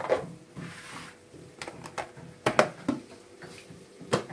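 Plastic food storage boxes being lidded and stacked: lids pressed shut and boxes set on one another, giving a scatter of short sharp clicks and knocks of plastic on plastic, a sharp one just before the end.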